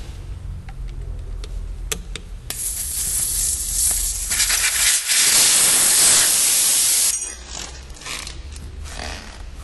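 Air rushing through a car tyre valve as a hiss that starts about two and a half seconds in, grows louder and cuts off suddenly after about four and a half seconds. A few light clicks from tool handling come before it.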